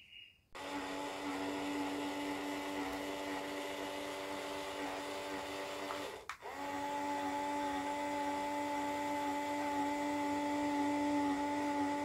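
Small electric motor in a cardboard toy air conditioner whirring steadily as it swings the louver flap closed. It cuts out for a moment about six seconds in, then starts again at a slightly different pitch.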